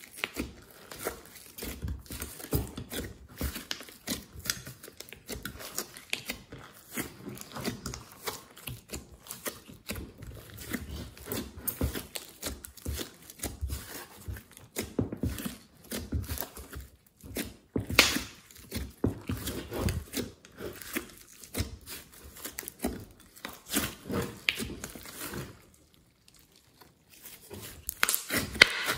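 Hands kneading, squeezing and stretching a large glossy slime: dense, irregular sticky squishing with crackling and little pops as the slime pulls apart and folds. Brief pause about three-quarters of the way through.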